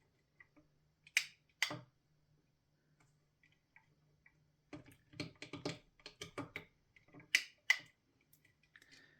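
Small plastic wire connectors being unplugged and plugged onto the pins of an LED bar's electronic control panel: two sharp clicks about a second in, then a quick run of clicks and light rattling from about five to eight seconds.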